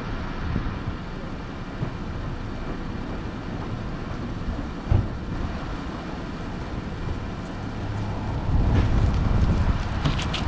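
Wind buffeting the microphone in a steady low rumble, with a single sharp knock about halfway through. The rumble grows louder near the end, with a few light clicks.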